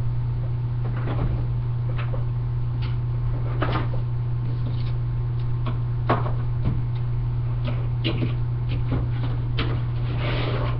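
Steady low electrical hum with scattered faint knocks and clicks, like cupboards or drawers being handled.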